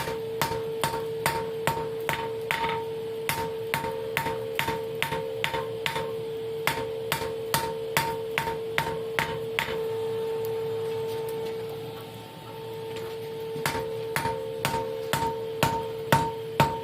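Blacksmith's hammer striking a hot high-carbon steel bar (an old file) on the anvil, about three blows a second, drawing it out to a taper. The blows stop for a few seconds about ten seconds in and then start again, over a steady hum.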